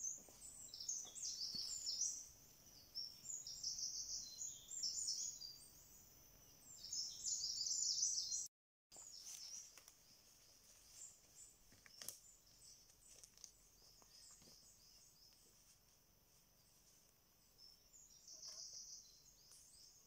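Songbirds singing in quick, high phrases in a forest, loudest in the first part, with a few faint footsteps on the forest floor. The sound cuts out completely for a moment about eight seconds in, then the birdsong goes on more faintly, with one more clear phrase near the end.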